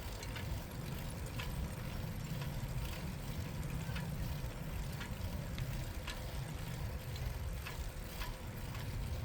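Bicycle riding on a paved path: a steady low rumble of wind and tyres, with faint irregular ticks scattered through it.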